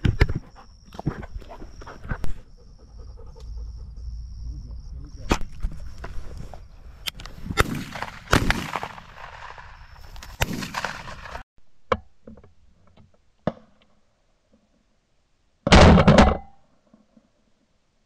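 Wind rumble and scattered handling knocks with a faint steady high tone, which cut off abruptly about 11 seconds in. Then a single loud shotgun blast comes about 16 seconds in.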